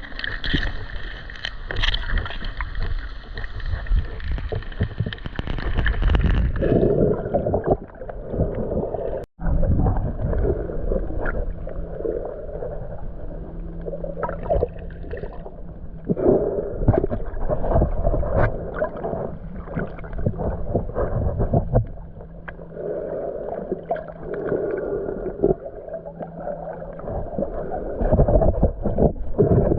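Muffled underwater sound of snorkeling, picked up by a submerged action camera: water sloshing and gurgling in repeated surges. Through the middle stretch a steady low hum sits under it.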